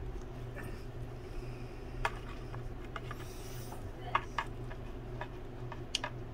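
Faint scraping and a few light clicks from a metal rod being worked through wet epoxy and fibreglass strands inside a small boat hull, over a steady low background hum. The clicks come about two seconds in, twice around four seconds, and once near six seconds.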